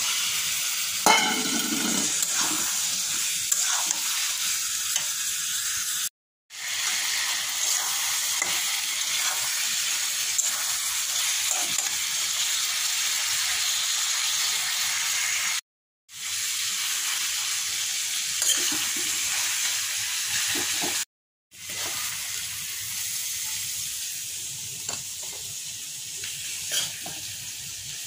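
Chicken pieces and potatoes sizzling loudly as they fry in spice paste in a metal pan, with a steel spatula stirring them. The sizzle starts with a clatter about a second in, when the raw chicken goes into the hot pan. It cuts out briefly three times and is quieter near the end.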